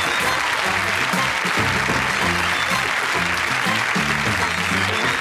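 Studio audience applauding over the show's band music, with a bass line stepping from note to note underneath.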